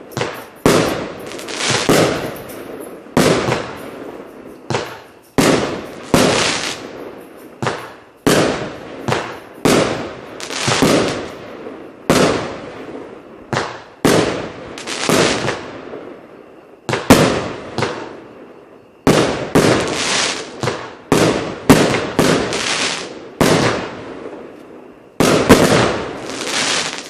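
Consumer compound firework cake of 25 mm calibre firing shot after shot, each a sharp report trailing off as the star shell bursts, about one a second. The shots thin out briefly about two-thirds of the way through, then come faster again.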